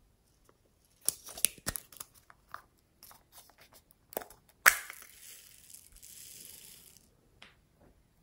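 Red strawberry-shaped squishy stress ball being torn open by hand, with a run of sharp snaps and clicks. Then comes a soft hiss for about two seconds as its beads spill out onto the slime.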